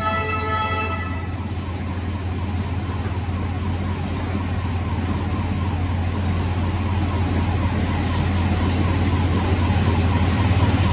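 Track-renewal machinery running with a steady low hum and a continuous rattling, clattering noise that gets a little louder near the end. A pulsing multi-tone warning signal sounds during the first second and then stops.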